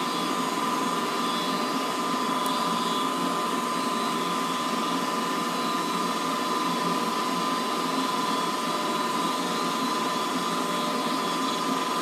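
Goodman gas furnace's draft inducer motor running steadily, a whirring fan with a steady high whine, early in the furnace's ignition sequence before the igniter and gas valve come on.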